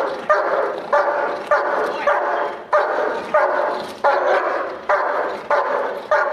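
German Shepherd protection dog barking on command, about ten loud barks in a steady rhythm, each sharp at the start and trailing off. It is an alert bark on the 'watch' command, aimed at a plainly dressed person who poses no threat.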